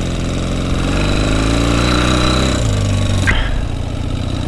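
1976 Kawasaki KZ400's parallel-twin engine under way, revs climbing for about two seconds, then dropping suddenly.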